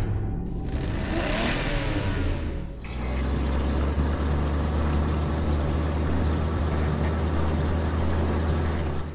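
Cartoon monster truck engine sound effect: a noisy revving rush for the first three seconds or so, then a steady low engine hum.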